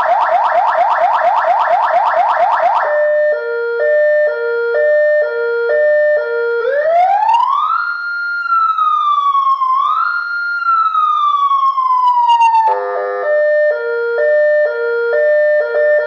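12-tone electronic siren horn (AS928, 200 W, 12 V) cycling through its tones. First a rapid string of rising chirps, then a stepping pattern of a few alternating notes. About six and a half seconds in comes a wail that rises, falls slowly, rises again and falls, then a short fast warble near the thirteen-second mark before the stepping note pattern returns.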